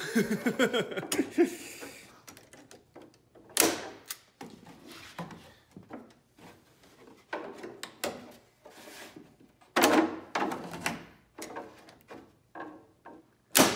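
Arrow T90 manual staple gun firing staples through cedar strips into the canoe's forms: several sharp clacks a few seconds apart. Between them come quieter knocks and rubbing as the wooden strips are pressed into place.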